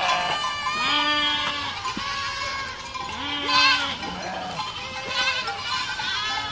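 A herd of goats bleating, several animals calling at different pitches, the calls overlapping and following one another every second or two.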